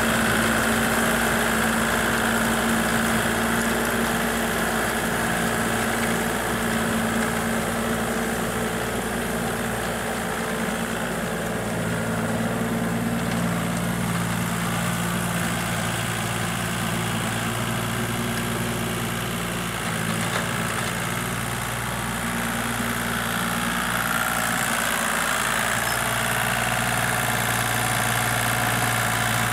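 Kubota compact tractor's diesel engine running steadily under load while it pulls a rotary tiller through a muddy rice field, its note shifting slightly a couple of times.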